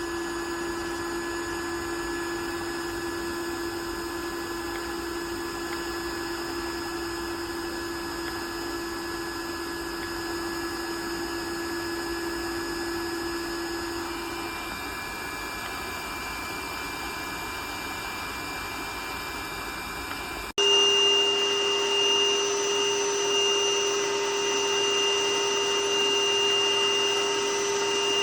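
Portutif cordless handheld vacuum cleaner running, a steady motor whine. About twenty seconds in it cuts abruptly to a louder, higher-pitched run.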